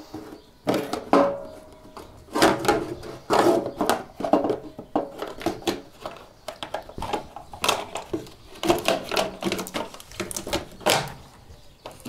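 A cover inside a washing machine being wiggled and pulled loose by hand: an irregular run of knocks, clicks and rattles as it works free of the tab that still holds it.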